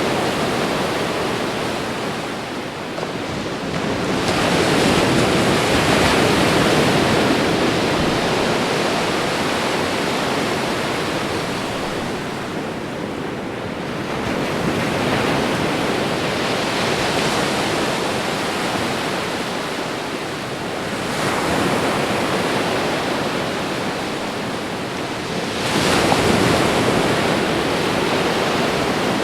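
Ocean waves washing onto a shore: a steady rush of surf that swells with a fresh wave every several seconds, four times in all.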